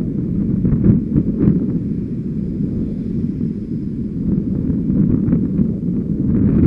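Wind buffeting a helmet camera's microphone while riding along a road: a steady, heavy low rumble with a few faint ticks.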